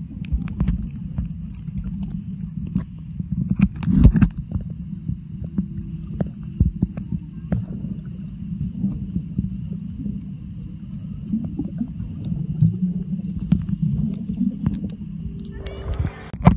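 Water heard through a submerged camera microphone: a muffled low rumble with scattered knocks and clicks, the loudest about four seconds in. Near the end there is a brief burst of splashing as the microphone comes up out of the water.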